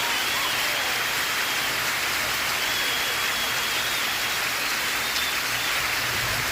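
Steady rain falling, an even dense hiss, with faint tones from a television show just audible beneath it.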